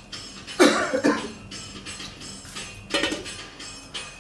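Three short, loud bursts from a person's voice, about half a second in, about a second in and about three seconds in, over faint background music.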